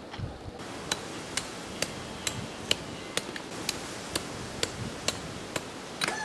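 Small hammer striking volcanic stone in an even rhythm, about two sharp knocks a second, eleven blows in all. A rooster starts to crow at the very end.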